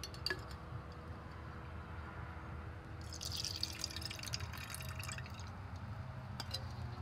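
Water poured from a glass graduated cylinder into an open aluminium soda can used as a pop-can calorimeter, trickling and splashing inside the can. It is loudest a few seconds in, with a few light clicks near the start.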